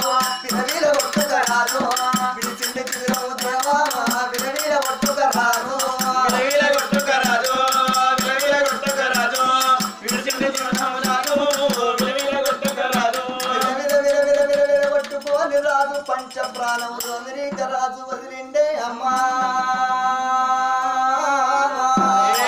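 Telangana Oggu Katha folk singing: a male voice sings long, bending melodic lines over a fast, even rattle of hand-drum and jingling percussion. About 17 seconds in, the percussion drops away and the voices hold long, steady notes.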